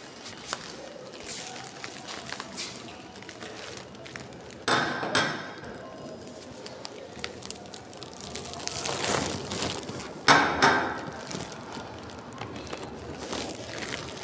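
Rustling and handling noise from someone climbing tiled stairs with a plastic bag, with two pairs of sharp knocks about a third of the way in and again about three quarters of the way in.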